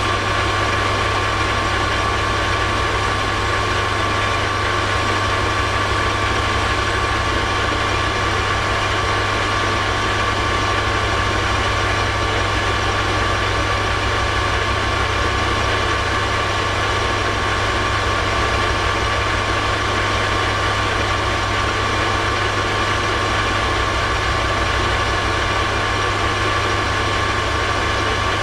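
Metal lathe running steadily during a turning job, a constant motor hum with a steady high-pitched whine from the drive.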